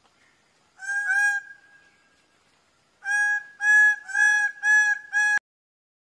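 Male greater bird-of-paradise calling loudly: two short calls about a second in, then a run of five calls from about three seconds, each a steady pitched note, cut off abruptly.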